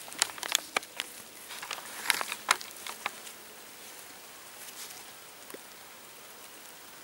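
A run of sharp clicks and knocks from a hand-held camera being carried and turned around during walking, over the first three and a half seconds, then only a faint steady outdoor hiss.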